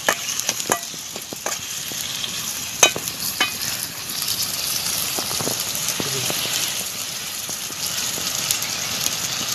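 Chopped onion and tomato sizzling in a steel bowl over a wood fire as a ladle stirs them, with a few sharp clicks in the first few seconds. The sizzle grows a little louder about four seconds in.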